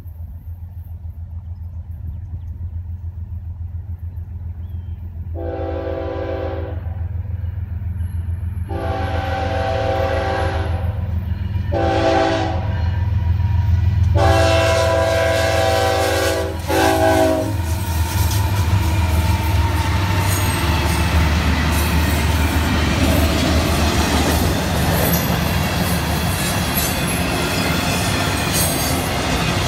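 Two FEC GE ES44C4 diesel locomotives approach with a low engine rumble that grows louder, and sound the horn for the grade crossing in the long, long, short, long pattern. From about 18 seconds in, the intermodal well cars roll past, their wheels clattering over the rails.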